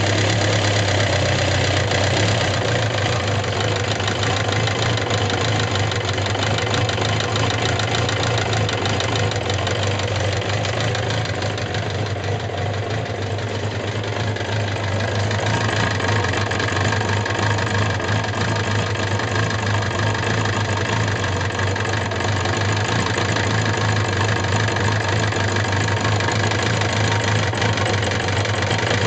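Suzuki GSX750S Katana's air-cooled inline-four idling steadily with a fast, continuous clatter and ticking from the top end. The owner has replaced the rocker arms, camshaft and cam chain parts and reset the tappet clearances without curing it, and the cause remains unknown.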